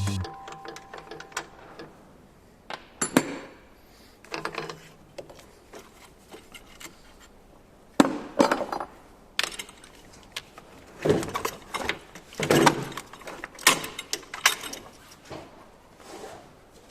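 Hand tools and parts being handled during a car battery replacement: irregular knocks and metallic clinks, some in quick clusters, with quieter handling noise between them.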